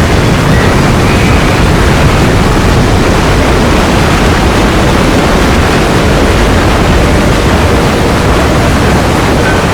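Loud, steady rushing noise with no tone, rhythm or break, spread evenly from deep rumble up to high hiss.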